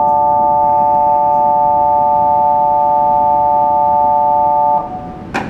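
Electronic departure warning tone on a railway platform: a loud, steady chord of several pure tones that cuts off sharply a little before the end, followed about half a second later by a single sharp clunk.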